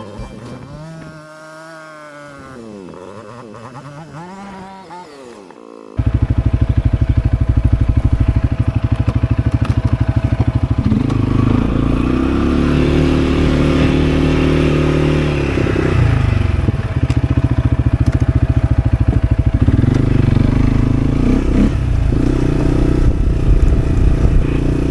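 Fiddle music for about the first six seconds, then an abrupt cut to a farm vehicle's engine running close by as it drives across the paddock, with a rapid even pulse, its pitch rising and falling as the driver speeds up and eases off.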